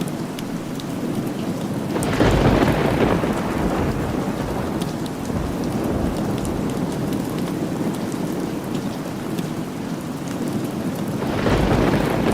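Steady rain with two rolls of thunder, one about two seconds in and another starting near the end.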